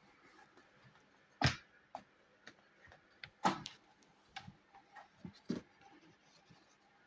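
A series of sharp clicks and knocks, the two loudest about two seconds apart, with lighter ticks in between and after.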